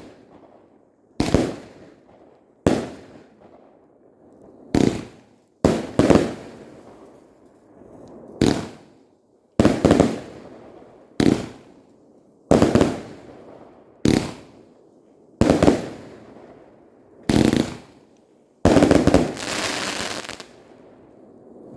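Maxximum Attack firework cake firing its shots one after another, roughly every second and a half, each a sharp bang with a short fading tail. Near the end a quicker, longer volley of shots runs together.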